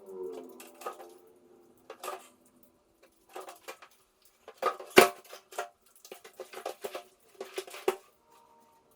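Irregular clinks and scrapes of a metal plastering spatula being worked against plaster and its container, with one louder knock about five seconds in.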